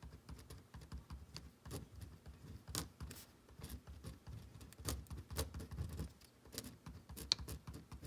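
Irregular light clicks and taps, a few a second, with soft low thuds: a pen drawing a chemical structure by hand.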